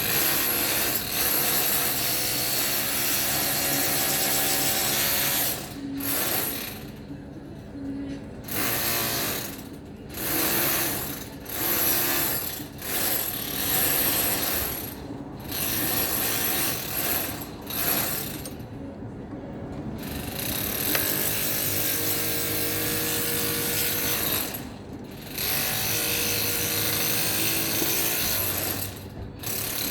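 Hand ratchet wrench clicking in runs of a few seconds, with short pauses between runs, as a bolt is worked on the engine.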